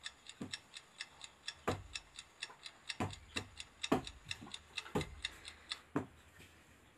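Clock ticking: light ticks several times a second, with a louder tick about once a second, stopping shortly before the end.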